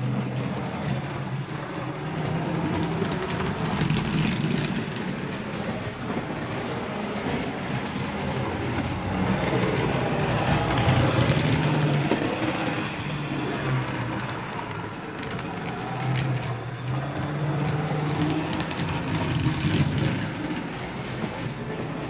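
Electric motor and gears of an HO-scale model steam locomotive humming as it runs along the track, the hum wavering in pitch and level.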